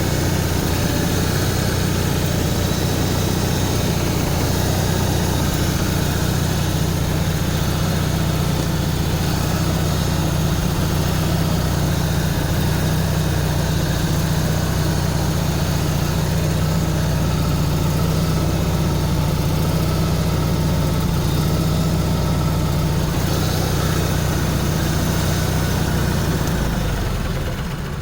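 Onan RV generator running steadily, then shutting down about a second before the end.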